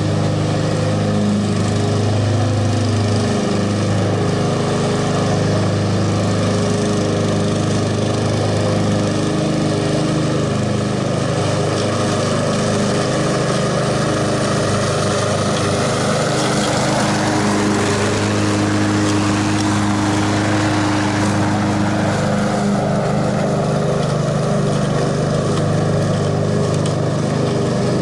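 Honda HRX217 walk-behind mower's engine running steadily under load while it cuts grass. The sound turns sharper and fuller for a few seconds past the middle as the mower passes close by, then eases as it moves away.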